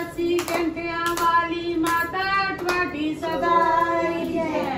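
High voices singing a devotional song, kept in time by steady hand claps.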